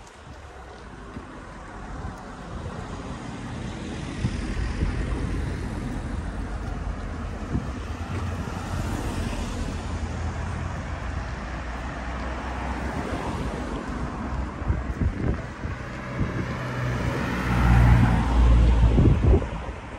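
Street traffic noise: car engines and tyres on the road, a steady rumble that grows louder and is loudest near the end.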